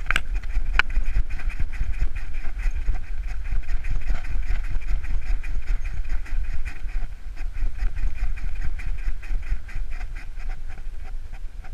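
Dog panting rapidly and rhythmically as it walks, heard close up from a camera strapped to its back, over a steady low rumble of wind and rubbing on the camera.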